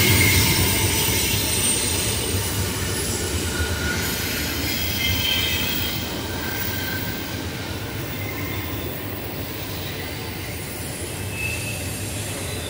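Freight train rolling past: a steady rumble of the cars, with brief high squeals from the wheels, slowly growing quieter.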